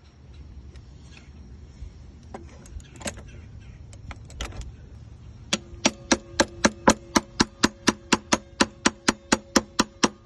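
A hammer tapping fast and steadily on a coin held in pliers at the edge of a B60 transducer's flange, about six ringing metallic taps a second from about halfway in, after a few scattered single knocks. The coin is being driven between the transducer and the hull to break the 3M 5200 adhesive seal.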